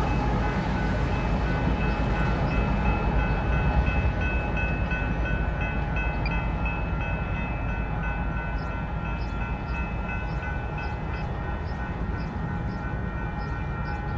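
Union Pacific mixed freight train rolling past: a steady low rumble from the cars with a few thin, steady high-pitched tones over it, slowly fading.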